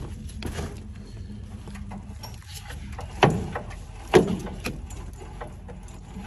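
Knocks and clatter from the radiator being rocked loose in the T-34/85's engine bay, with two sharp, loud knocks about three and four seconds in, over a steady low hum.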